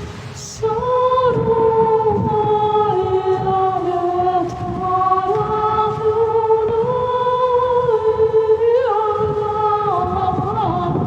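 Several voices sing long held notes together, like a choir. The notes move in small steps from one pitch to the next, and the singing swells in about half a second in.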